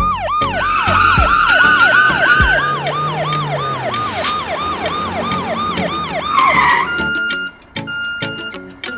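Cartoon police-car siren sounding in fast, repeated falling sweeps, about three a second, which stops about seven seconds in. A steady electronic beep then repeats about once every half second, over background music with a beat.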